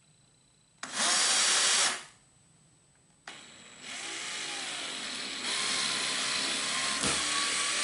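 Cordless drill driving a screw through a nylon strap hinge into the plastic wall of an Igloo cooler. It makes a short run of about a second, then after a pause a longer run of about five seconds as the screw cuts its own new hole.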